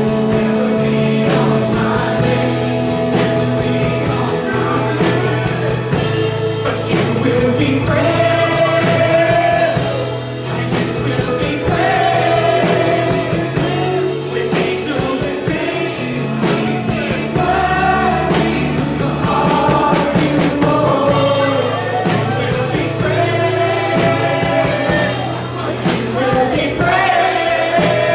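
Live worship music: singers over a band with sustained keyboard or guitar chords and steady drums.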